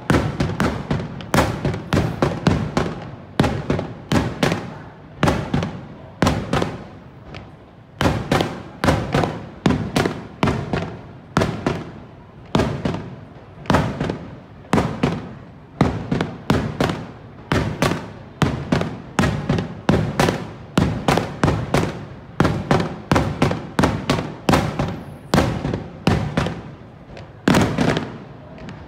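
Aerial fireworks display: shells bursting overhead in a rapid, continuous run of sharp bangs, several a second, each with an echoing tail. The barrage stops near the end.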